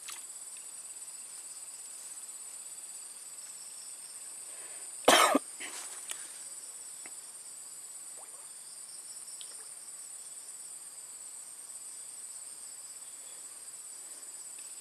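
Insects chirring steadily at a high pitch throughout, with a single short, loud cough about five seconds in.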